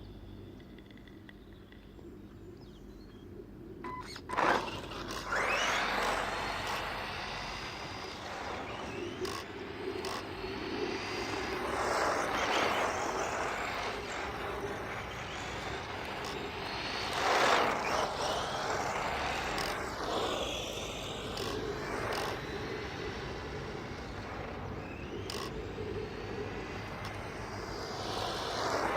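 Radio-controlled Tamiya buggy running: a click about four seconds in, then motor and tyre noise that swells and fades repeatedly as it speeds up and slows, with a whine sliding in pitch near the end.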